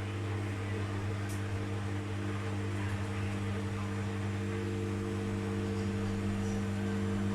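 Beko 7 kg washing machine humming steadily with a low, even electrical drone and no rise in pitch. The spin is held back because the drum is full of suds, which the machine detects.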